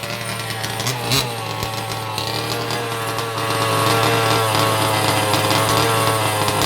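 Small two-stroke petrol engine of a 1/5-scale RC car running steadily, with a short blip about a second in and getting louder around halfway through.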